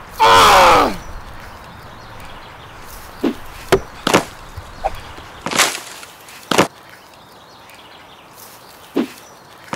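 A man's loud yell, falling in pitch and lasting about a second, then six sharp knocks and thuds at uneven gaps over the next eight seconds.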